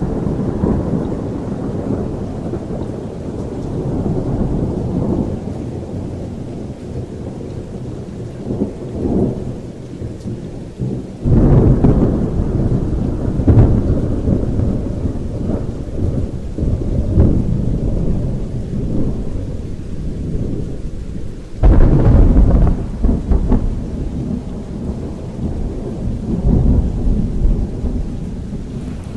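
Thunder rumbling on and off, with two sudden loud thunderclaps, about a third and about two-thirds of the way in, each rolling on for several seconds, under steady rain.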